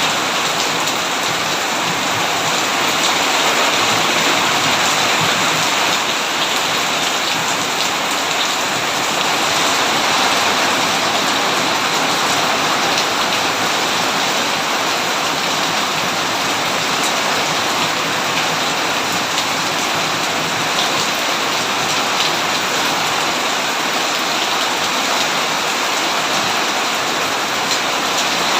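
Steady rain falling, a dense, even hiss of drops on surfaces that holds at one level throughout.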